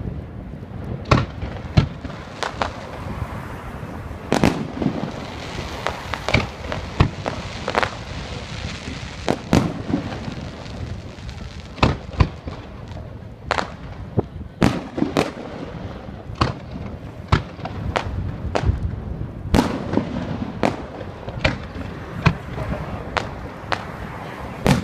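Aerial firework shells bursting overhead: a long, irregular run of sharp bangs, roughly one a second, with rumbling echoes filling the gaps between them.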